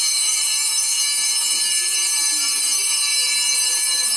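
Altar bells shaken without pause during the elevation of the consecrated host, giving a dense, steady, high ringing of many tones.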